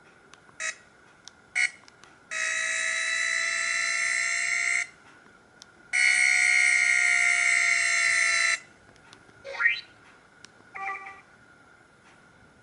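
Samsung SGH-E900 mobile phone playing its built-in electronic alert tones: two short blips, then two long buzzy tones of about two and a half seconds each, the first drifting slightly up in pitch and the second slightly down. A quick rising sweep and a short chord-like blip follow near the end.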